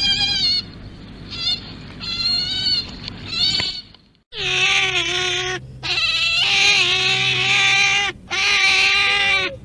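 Animal calls: a string of short, wavering high-pitched cries, then, after an abrupt cut, several long drawn-out lower cries over a low hum.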